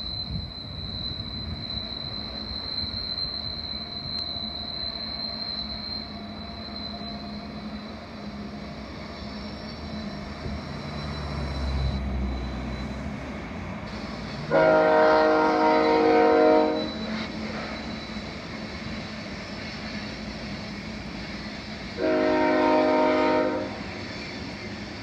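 Locomotive air horn sounding two chord blasts, the first about two seconds long around the middle, the second shorter near the end, over the steady rumble of a passing train.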